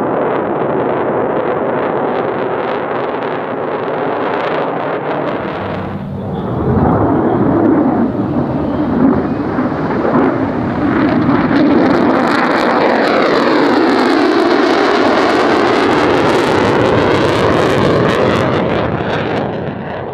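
Lockheed Martin F-35A's Pratt & Whitney F135 turbofan running as the fighter flies a demonstration pass: a loud, rough jet roar that grows louder about seven seconds in. As it passes, a sweeping phasing whoosh runs through the roar, which drops off near the end.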